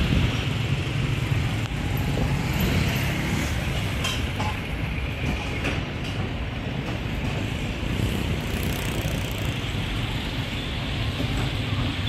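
Steady road traffic noise at a busy street: a continuous low rumble with a hiss over it.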